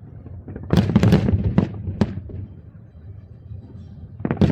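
Aerial fireworks shells bursting in a rapid cluster of sharp bangs about a second in, followed by a low rumbling echo. Another volley of bangs starts near the end.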